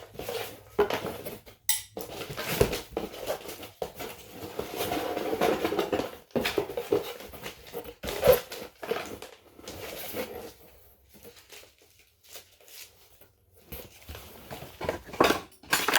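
Small metal parts and odds and ends clattering and knocking as they are rummaged through and handled in a box, irregular clicks and rattles, with a quieter spell past the middle.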